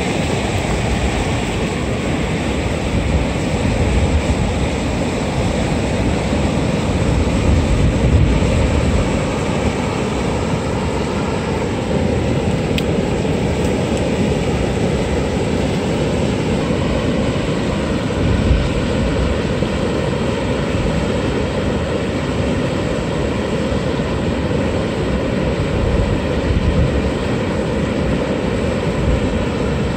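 Water rushing steadily over a low weir, a constant loud noise with gusty rumbles low down.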